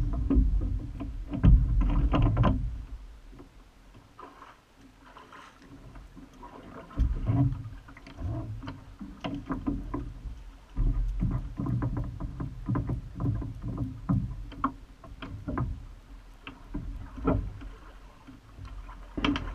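Water splashing and sloshing against the hull of a rowing shell, with scattered knocks and bumps as the boat is handled in shallow water. It comes and goes in uneven patches, loudest near the start and again from about seven seconds in.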